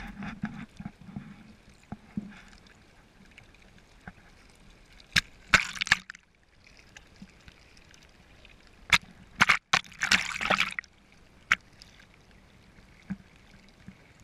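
Small waves slapping and sloshing against a sailboat's hull at the waterline, close to the water. There are sharp splashes, with louder bursts about five and a half seconds in and again around ten seconds.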